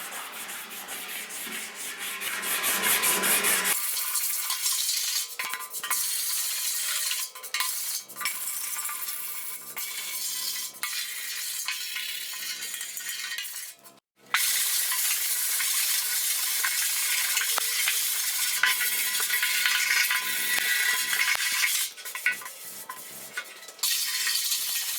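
80-grit sandpaper on a hand sanding block rubbing over a metal motorcycle gas tank, a steady scratchy hiss. This is block-sanding the flat areas to show up dents. The sound breaks off for a moment about halfway through.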